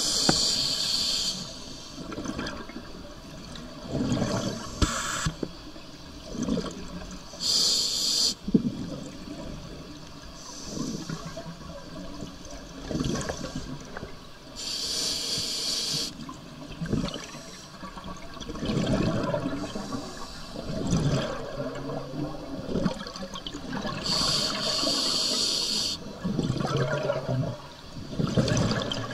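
A scuba diver breathing through a regulator underwater: a hissing inhalation every few seconds, and in between the low bubbling gush of exhaled air.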